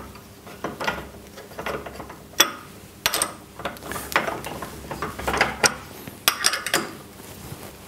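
Allen key tightening the screw that holds a threaded Morse taper end mill in a steel tool holder: irregular small metallic clicks and scrapes, with a sharp click about two and a half seconds in and a quick run of clicks about five to seven seconds in.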